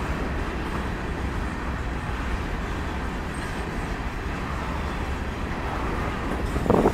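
Freight train of covered hopper cars rolling past: a steady rumble and rattle of steel wheels on the rails. A brief louder burst comes just before the end.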